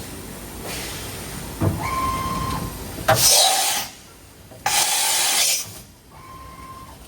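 DMG Mori DMU 60 machining center running: a steady motor whine comes and goes, and two bursts of compressed-air hiss come in the middle, each just under a second long.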